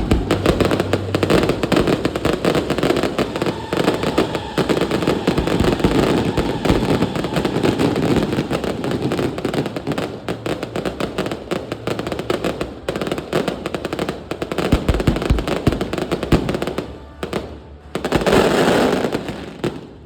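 Aerial fireworks barrage: a dense, continuous crackle of rapid bangs. It thins out about three-quarters of the way through, then there is one last loud burst near the end.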